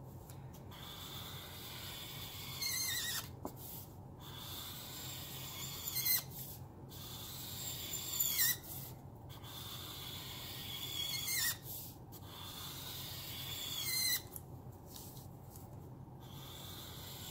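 Zongii alcohol marker's chisel tip rubbing across paper as it lays down black ink, stroke after stroke. A high squeak comes about every three seconds, five in all; the noise is horrible.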